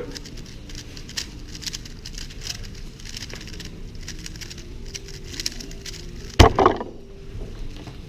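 Rapid, continuous clicking of a 3x3 speedcube's layers being turned fast during a blindfolded solve. About six and a half seconds in comes a single loud knock.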